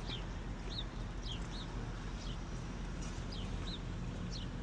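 Small birds chirping: short, high, downward-sliding chirps, two or three a second, over a steady low rumble.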